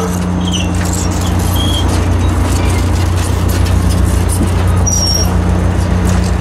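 Stainless-steel passenger cars rolling past: a steady rumble of wheels on rail over a low hum, with a few brief high squeals of wheel flanges against the rail.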